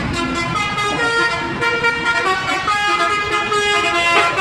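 A bus's multi-tone telolet air horn playing a tune: a quick run of loud horn notes that change pitch every fraction of a second, often several tones together, over the low rumble of the vehicle.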